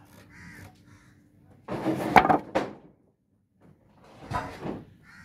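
Old wooden beams and planks clattering and knocking against each other as they are handled, in two loud bursts of about a second each.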